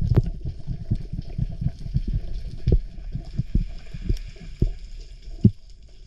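Muffled underwater noise picked up through a camera's waterproof housing as a freediver swims along the seabed: irregular low thumps and rumbles of moving water over a faint steady hiss.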